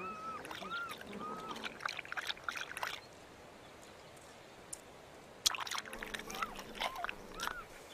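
Cheetah cubs chirping in short, arched, bird-like calls, several in a row at first and a few more near the end, among soft rustling clicks.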